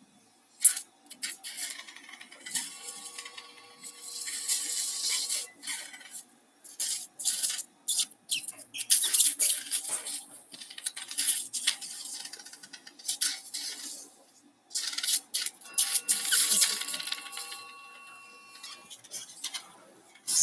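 Electrosurgical cautery at work on soft tissue: many short, irregular hissing and crackling bursts, with a steady electronic tone from the unit held for a few seconds twice, once early and once near the end.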